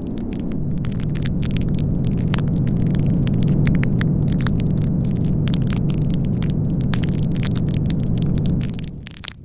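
Blizzard wind in one long low rumbling gust that swells in, holds steady and dies away near the end, over a continuous light crackling.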